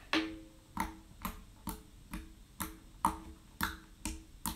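Homemade glitter slime squished and poked with fingers, giving short wet clicking pops about twice a second.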